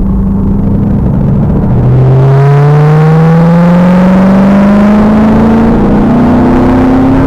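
2000 Pontiac Trans Am Firehawk's LS1 V8 heard from the rear. It holds a steady note, then about two seconds in the pitch drops as it shifts up and gets louder. It then accelerates with the pitch rising steadily.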